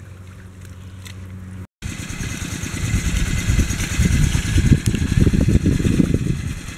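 Engine of a walking tractor driving a water pump, running steadily with a fast, even firing beat. It comes in abruptly about two seconds in after a moment of silence and gets louder through the middle.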